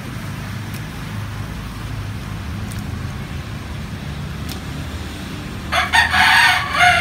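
A rooster crows once, loudly, starting about six seconds in and lasting about two seconds, ending on a held note, over a steady low rumble.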